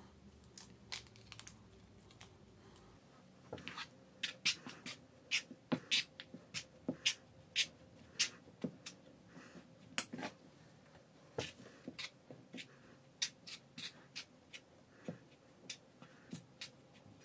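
Metal spoon stirring a dry flour batter in a nonstick frying pan, clicking and scraping against the pan in quick irregular strokes that begin about three and a half seconds in.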